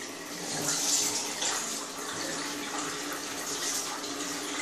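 Water running steadily from a bathroom tap, an even rushing splash with a faint low hum beneath it.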